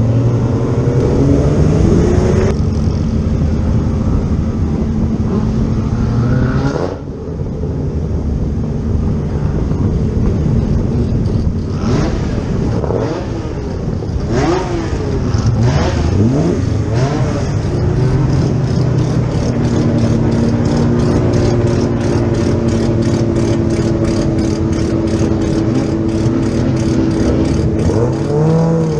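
Classic racing car engines running hard and revving, their pitch rising and falling, with an abrupt change about seven seconds in. In the second half a steady engine note carries a fast, even ticking.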